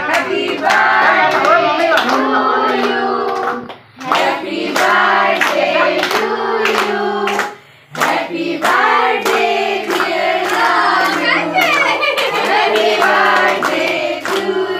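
A group of children and adults singing a birthday song together while clapping in time, a steady beat of hand claps under the held notes. The singing and clapping break off briefly twice, about four and eight seconds in.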